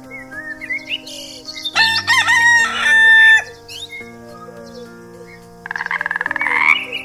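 A rooster crows once, loud, about two seconds in, with a few short chirping calls before it. Near the end a frog gives a rapid pulsing croak that rises slightly.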